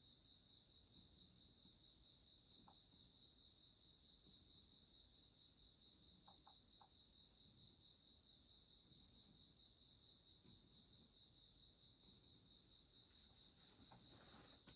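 Faint crickets singing: a steady, rapid pulsing trill, with a second slightly higher song coming and going and a few soft ticks.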